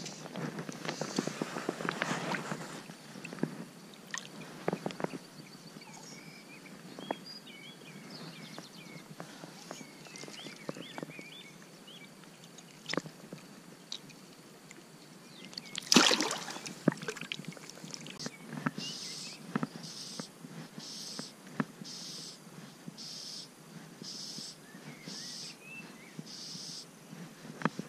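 Water sloshing and splashing in a river, with a louder splash about 16 seconds in. Near the end comes a run of short, evenly spaced hissing swishes.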